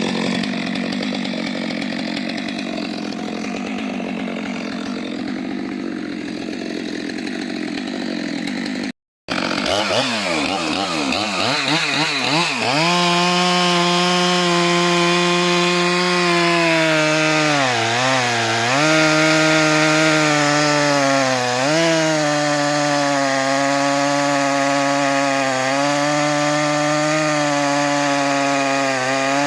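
Stihl MS 462 two-stroke chainsaw with a 90 cm bar cutting a log. The saw runs steadily, cuts out briefly about nine seconds in, then revs up to a high, steady whine. Past the middle the pitch sags twice as the chain loads in the wood, then recovers.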